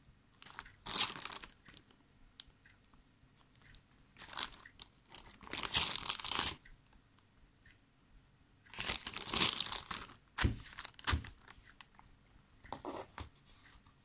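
Clear plastic zip-lock bag crinkling as it is handled, in several bursts of a second or two, with two short knocks about three-quarters of the way through.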